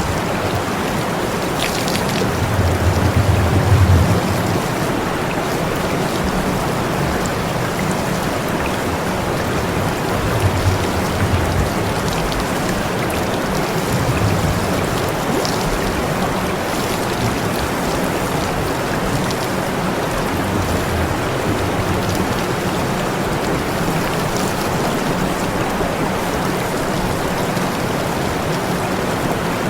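Water spraying in a steady hiss, with brief low rumbles about two to four seconds in and again around ten to twelve seconds in.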